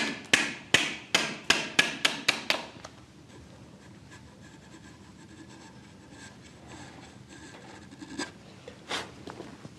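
Hammer striking a wood chisel, about ten sharp blows in quick succession over the first three seconds, the blows coming faster toward the end, as the chisel chops waste out of a timber joint. Then quieter scraping as the chisel pares the wood by hand, with a couple of light knocks near the end.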